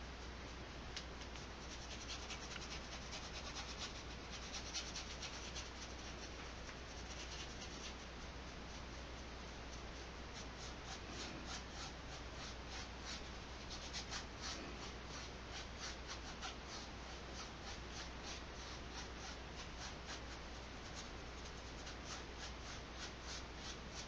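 Nylon flat brush scrubbing acrylic paint across canvas in rapid short back-and-forth strokes, a faint scratchy rubbing.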